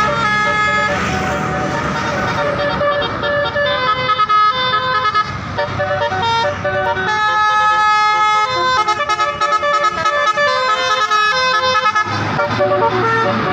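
Bus telolet (basuri-type) multi-tone horn playing a quick tune of changing notes, with the bus engine running underneath.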